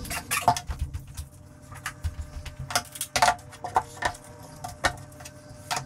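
Scattered clicks and knocks from handling: footsteps and a cordless circular saw being set on and moved across a particleboard countertop, with the saw not running. The loudest knocks come about half a second in, a little past three seconds, and near the end.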